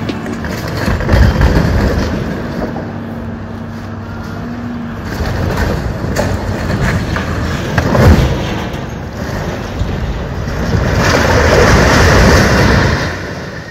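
A tall concrete-stave farm silo being toppled. There is a sharp loud crack about eight seconds in, then a long, loud crash near the end as the silo falls and breaks up.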